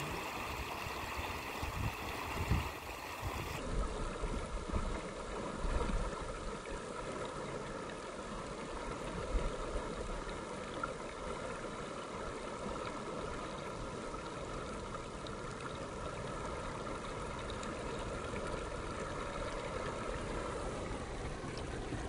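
Swollen, flood-high stream rushing and churning through a fish ladder below a weir: a steady wash of white water.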